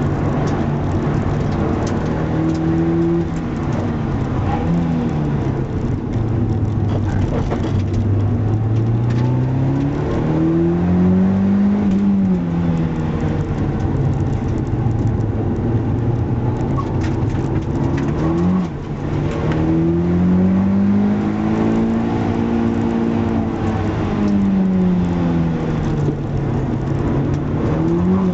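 Car engine running hard on a race circuit, its pitch climbing steadily for several seconds and then dropping, again and again as the car accelerates and slows, over steady road and wind noise.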